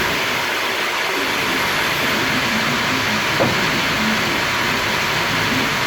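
Sawmill machinery running with a loud, steady noise, with one short knock about three and a half seconds in.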